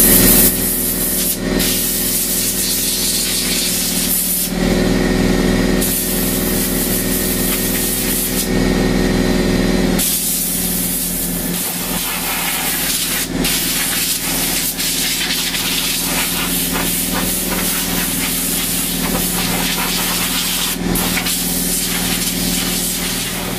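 Compressed air from an air-compressor blow gun hissing in blasts of a few seconds, then one long blast from about ten seconds in, blowing dust out of a laptop's heat sink fins. A steady low hum runs underneath.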